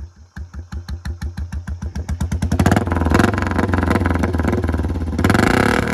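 Old Royal Enfield Bullet 350 single-cylinder engine exhausting through an aftermarket 'monster' silencer, revved from idle: the slow separate thumps quicken over about two seconds into a very loud high rev that holds. It swells once more near the end and then starts to drop back.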